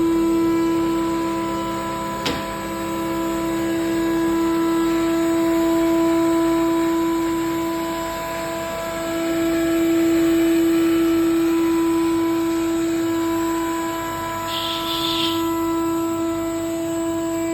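CNC milling router spindle running with a steady high whine, dipping slightly in level now and then. A sharp click comes about two seconds in, and a short hiss comes near the end.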